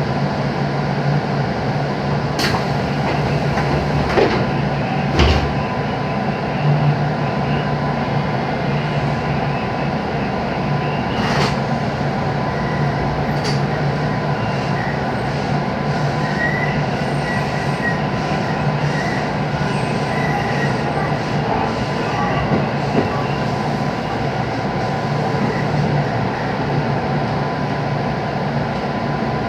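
JR West 221 series electric train running, heard from inside the passenger car: a steady rumble of wheels and running gear, with a few sharp clicks in the first dozen seconds.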